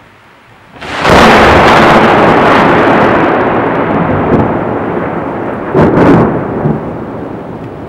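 Thunder: a sudden loud clap about a second in, rolling on and slowly fading, with a second sharp crack about five seconds later.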